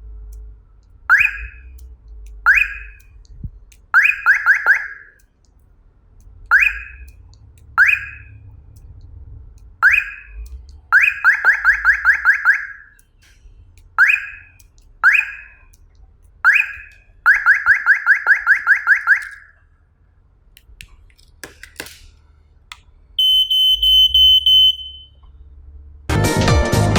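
Electronic beeps from a wireless smoke detector and alarm system. Short chirps come singly and in quick runs of about six a second, then a shrill, rapidly pulsing alarm tone sounds for about two seconds near the end.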